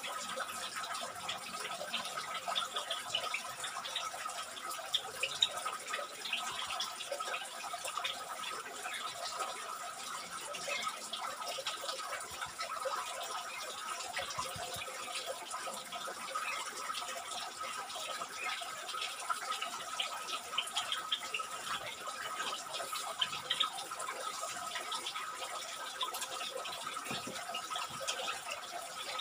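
Steady trickling, running-water noise with a faint, unbroken high tone and many tiny irregular ticks.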